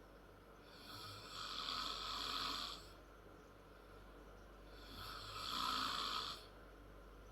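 A 10-year-old girl snoring loud and hard in her sleep: two long snores about four seconds apart, each lasting about two seconds, with quieter breathing between.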